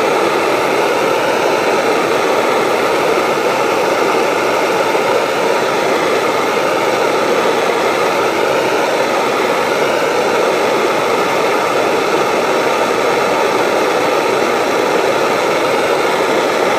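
Heat gun blowing steadily: a loud, even hiss with a faint wavering whine through it, heating an engine case so that chilled bearings will drop into their bores.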